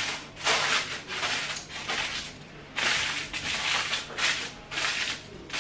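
Aluminium foil crinkling in a series of short crackly bursts as it is pressed and crimped tightly around the rim of a covered pot.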